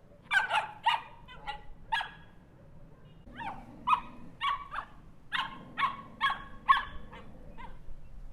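Small dog barking: a quick volley of about five sharp barks, then after a short pause a longer run of about ten.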